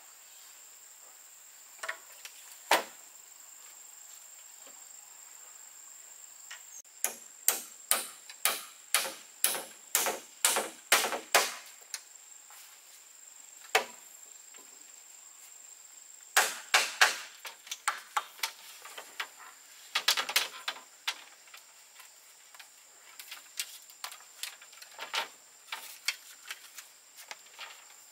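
Runs of sharp knocks or chopping strokes, at times about two a second and at other times scattered, over a steady high insect drone.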